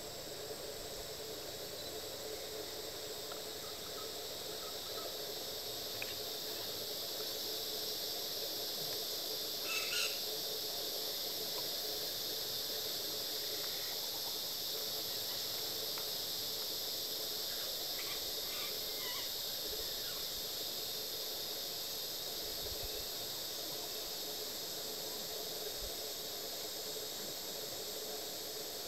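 Steady high-pitched chorus of insects. A few short calls stand out above it, the loudest about ten seconds in and others near the twentieth second.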